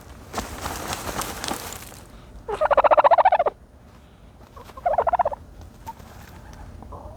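A turkey gobbling: a loud, rapid rattling gobble about two and a half seconds in, a shorter one around five seconds, and a faint one near the end. Before them comes a second or so of scratchy rustling of dirt as the turkey dust-bathes.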